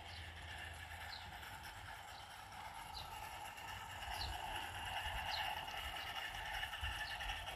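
A 16mm-scale narrow gauge model locomotive running along a garden railway, a steady running noise that grows louder about halfway through as it comes onto the trestle bridge, while a bird chirps again and again in short falling notes.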